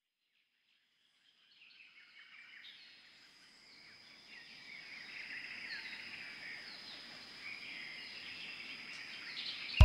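A chorus of many short high chirps over a steady high buzz, fading in from silence a couple of seconds in and slowly growing louder: birds and insects calling.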